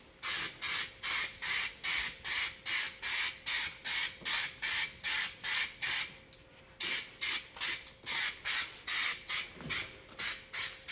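Raptor Liner aerosol can spraying bed liner in quick short bursts of hiss, about three a second, with a brief pause about six seconds in.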